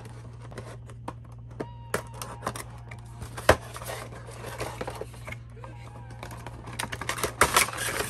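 A cardboard Funko Pop box being handled and opened: scattered taps and scrapes with one sharp click about three and a half seconds in, then a burst of crinkling as the clear plastic clamshell insert is slid out near the end. A steady low hum runs underneath.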